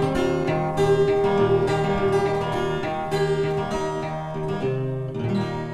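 Background music of strummed acoustic guitar, getting gradually quieter toward the end.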